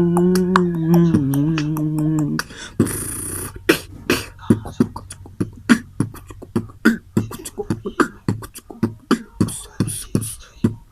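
A voice holding a slow melody of long notes stops about two seconds in; after a short breathy hiss, a human beatbox rhythm of mouth-made pops and clicks begins and runs on steadily.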